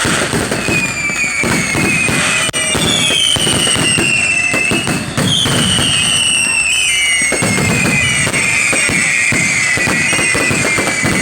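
New Year fireworks going off in dense, continuous crackles and bangs, with high whistling tones that slowly fall in pitch over several seconds.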